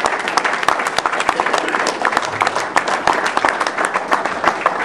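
A room of people applauding: many hands clapping in a dense, steady patter.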